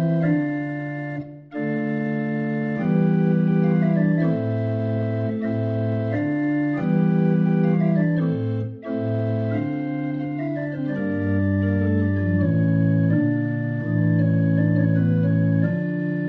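Organ music playing slow held chords that change every second or two, briefly dropping out twice: once about a second and a half in and once just before the middle.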